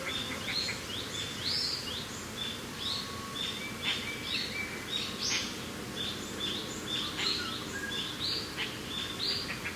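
Small birds chirping in quick, overlapping high calls, several a second, over a steady low rush of wind.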